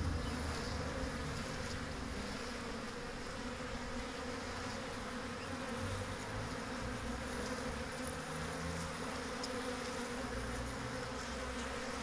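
Swarm of honey bees buzzing in a steady, unbroken drone as they fly about and settle onto a frame of old honey.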